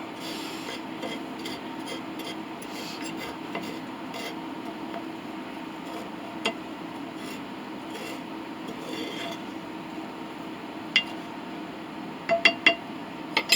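Metal scrap being scraped and shuffled in a metal container, a continuous scratchy rubbing over a steady low hum. Several sharp metallic clinks come near the end.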